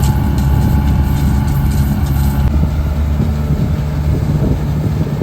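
Diesel engine of road-construction machinery running steadily with a low hum, with a higher rattling that stops about halfway through.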